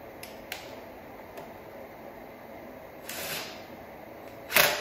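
Cordless impact driver run in short bursts on a nut at the mini bike's rear wheel: a brief burst about three seconds in and a louder one near the end, with a few small clicks of handling before.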